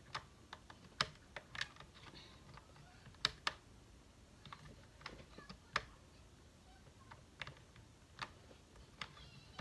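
Irregular light plastic clicks and taps, about fifteen spread unevenly with quiet gaps, as a small USB plug is handled and fitted into a port.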